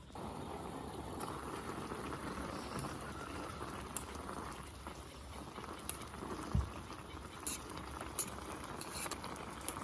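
Liquid bubbling steadily over heat, with a few light clicks scattered through it.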